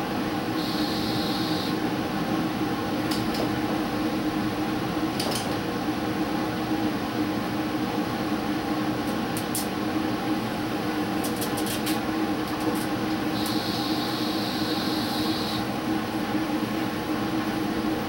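Steady drone of a diesel express train heard from inside its front observation cabin as it creeps along a station platform. A few short clicks and two brief high hisses come over it, one about a second in and one about three-quarters through.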